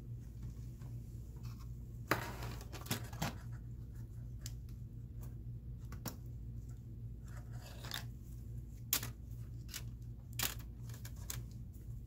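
Plastic and metal laptop parts being handled: scattered small clicks and short scraping rustles as a Dell Inspiron 15-5552 motherboard and its ribbon cable are worked free and lifted out of the chassis, over a steady low hum. The loudest sounds are a rustle about two seconds in and sharp clicks near the nine- and ten-and-a-half-second marks.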